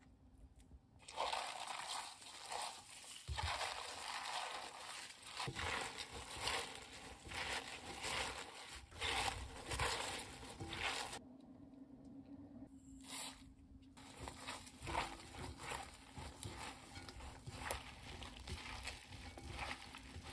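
Gloved hands tossing raw bomdong (Korean spring cabbage) leaves with seasoning in a glass bowl: irregular leafy rustling and crunching in uneven strokes. It pauses briefly about halfway through, then goes on more softly.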